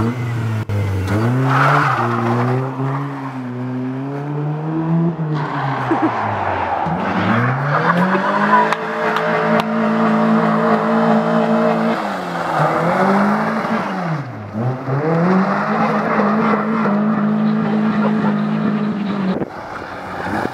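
Honda Civic's single-cam four-cylinder engine revved hard during a burnout, rising and falling and held at high revs for a few seconds at a time, with the tyres squealing as they spin. The engine note drops away shortly before the end.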